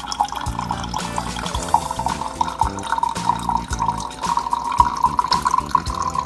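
A thin stream of lacquer thinner pouring from a plastic jug into an empty paint jar, trickling and splashing steadily.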